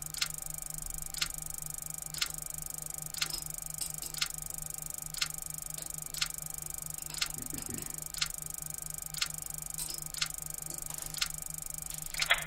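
A clock ticking steadily, about one tick a second, over a steady low hum.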